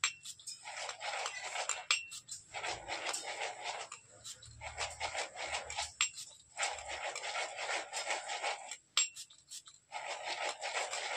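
Small damp pyrotechnic star granules rolling and rattling around inside a metal cup as it is swirled, in repeated swishing strokes about a second long with short pauses and a few light clicks between them. This is the rolling stage in which the wet stars take up a powder coating.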